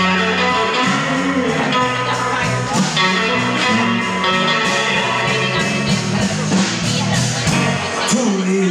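Live blues band playing: electric guitar lead lines over bass guitar and drums.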